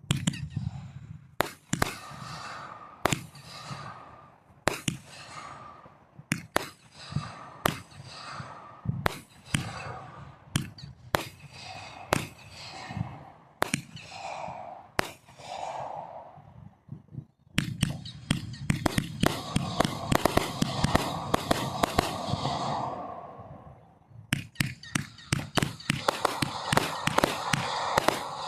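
Fireworks going off: sharp bangs roughly once a second, then from about two-thirds of the way through a dense crackling barrage of many rapid reports.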